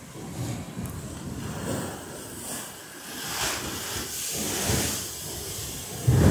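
Ocean surf breaking and washing over granite ledges: a steady hiss of churning water with irregular low surges, wind buffeting the microphone, and the loudest low surge just before the end.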